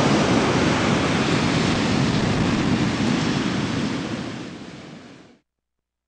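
Ocean surf breaking and washing up a sandy beach, a steady rush of white water; it fades out over the last two seconds and ends in silence.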